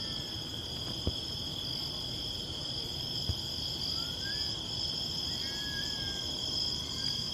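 Night insects, likely crickets, chirring as a steady high-pitched drone. A few faint wavering cries rise and fall in the middle, and there are two soft clicks.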